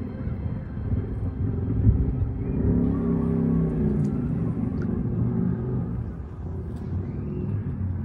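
Low rumble of a passing road vehicle, building over the first few seconds and fading toward the end.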